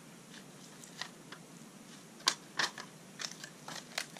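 Handling of bedding plants: several short, sharp clicks and rustles as annuals are pulled from thin plastic nursery cell-pack flats and tossed into holes in the soil, the loudest click about two seconds in.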